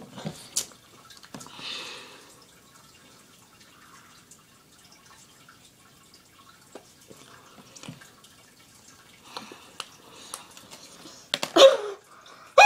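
Faint wet mouth clicks and smacks from a boy working a sticky candy strand in his mouth, then a short, loud vocal outburst about 11 seconds in.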